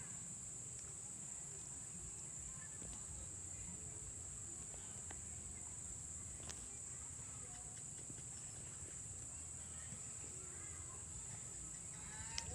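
A steady, high-pitched drone of insects over faint background noise, with a single sharp click about six and a half seconds in and a brief faint voice near the end.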